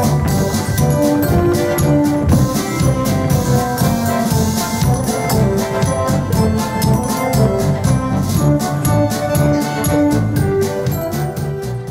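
Instrumental dance music with a steady drum beat under a melody, dropping away just before the end.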